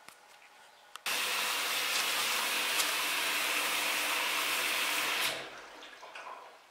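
Siemens iSensoric WM12N2K7GR front-loading washing machine running mid-cycle: a loud, steady rushing noise starts suddenly about a second in, holds for about four seconds, then dies away.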